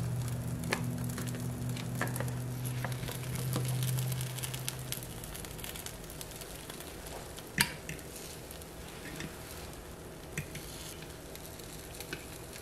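Waffle batter sizzling quietly in a Dash mini waffle maker, with scattered light clicks and taps, the sharpest about halfway through. A low steady hum fades out in the first few seconds.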